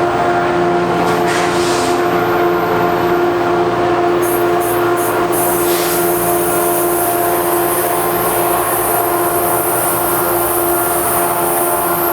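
Alstom PL42AC diesel locomotive's EMD 710 engine running with a steady, vacuum-cleaner-like whine of several held tones, a sound the engine probably shouldn't make. Brief hisses come about a second in and again around four to six seconds in.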